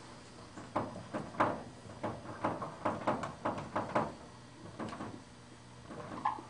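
Marker writing numbers on a whiteboard: a quick, irregular run of short strokes and taps.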